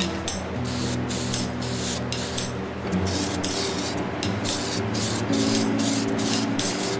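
Aerosol spray paint can hissing as paint is sprayed, over background music with sustained low notes.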